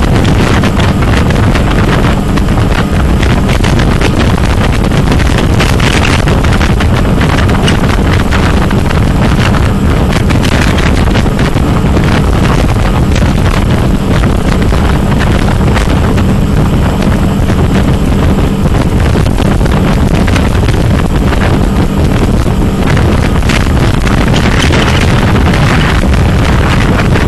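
Motorboat running at speed: a steady engine drone mixed with wind buffeting the microphone and the rush of the churning wake.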